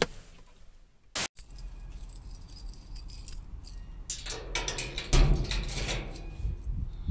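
A bunch of keys jangling, with irregular clinks and a heavier thump about five seconds in.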